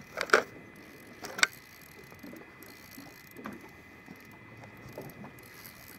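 Shimano Saragosa spinning reel being cranked and handled while fighting a fish: two sharp clicks in the first second and a half, then faint, irregular mechanical ticking.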